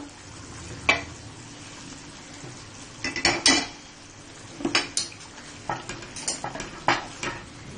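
A cooking utensil knocking and scraping against a metal pot as okra is dropped into a simmering chicken curry and stirred, in a string of sharp clinks: one about a second in, then clusters around three, five and six to seven seconds. A steady low simmer runs underneath.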